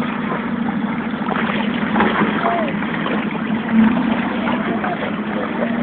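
Dogs wading and splashing in shallow water, over a steady low hum, with faint voices in the background.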